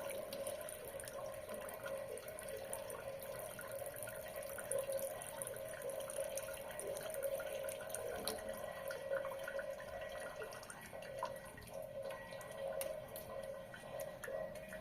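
Water tap running as a thin stream, splashing with frequent drips, as the faucet is being turned down.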